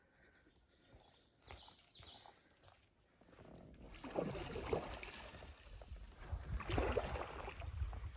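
A bird chirps briefly about two seconds in. From about four seconds, shoreline shrubs rustle and scrape along the side of an aluminium canoe as it is worked out through the bushes, in two louder surges.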